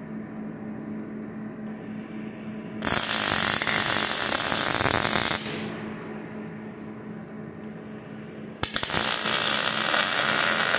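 A KUKA robot's arc welding torch lays two welds, each a loud crackling hiss lasting about two and a half seconds, the second starting with a sharp click as the arc strikes. A softer high hiss comes in about a second before each weld, over a steady low hum.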